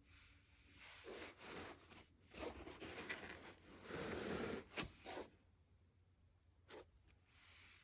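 Quiet handling noise from an unboxing: about four seconds of rustling and sliding scrapes with a few sharp clicks, then a single click and a short soft rustle near the end.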